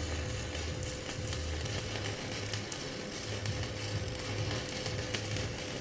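Stick-welding arc from a K-MAX 250A mini inverter welder, crackling and sizzling steadily as the electrode burns, with a faint steady tone underneath.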